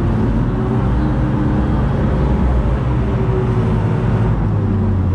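Longboat's engine running steadily, a deep low hum heard from on board the open boat.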